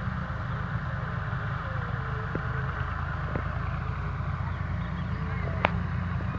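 An engine running steadily with a low drone, and a single sharp click near the end.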